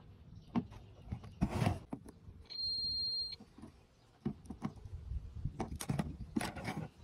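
A digital multimeter's continuity beeper sounds once, a steady high beep lasting under a second about midway, signalling a closed circuit between the test probes. Around it come light taps and clicks of the probes and circuit boards being handled on a wooden table.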